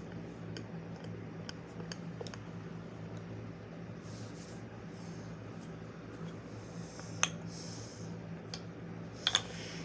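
Indoor room tone: a steady low hum, with scattered small clicks and rustles and a couple of sharper clicks in the last few seconds.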